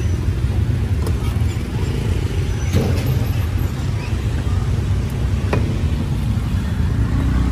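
Busy street ambience: a steady low rumble of passing traffic, with a few short clicks and knocks.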